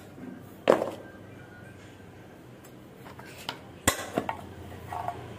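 Knocks and clicks as a metal shoe-polish tin and leather shoes are handled and set down on a hard floor: two sharp knocks, the first about a second in and the second, louder, near four seconds in, with a few lighter ticks around the second.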